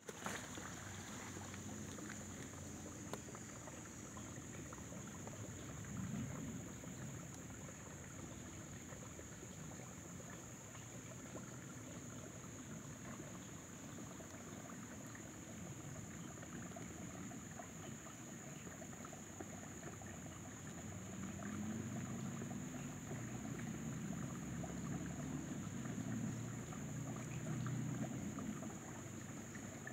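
Outdoor background noise: a low rumble that swells about six seconds in and again in the last third, under a steady high-pitched whine.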